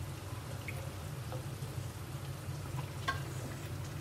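A metal spatula clinking and scraping a few times against a steel cooking pot while thick meat curry is lifted out into a serving bowl, over a steady low hum.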